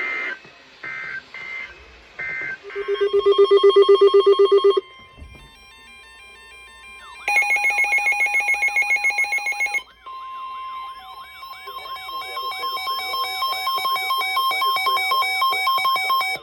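Emergency alert tones from weather radios. They start with short raspy bursts of SAME digital header tones and then a loud pulsing beep. From about five seconds in comes a steady NOAA Weather Radio warning alarm tone, joined by pulsing beeps and a rising-and-falling warbling alarm, all cutting off just before the end.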